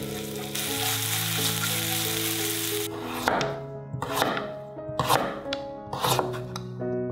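Chopped onion sizzling in hot oil in a pan as it is stirred, giving way about three seconds in to a chef's knife chopping a carrot on a wooden cutting board: four sharp cuts about a second apart.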